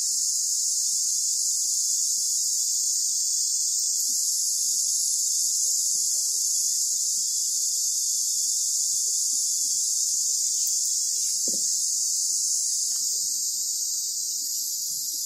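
Steady, loud, high-pitched insect chorus buzzing without a break, with faint soft ticks underneath and one slightly stronger tick about eleven seconds in.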